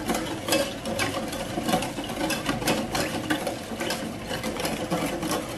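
Metal spoon stirring palm sugar and water in a stainless steel pot, clinking and scraping on the sides and bottom in quick, uneven strokes as the sugar is worked until it dissolves.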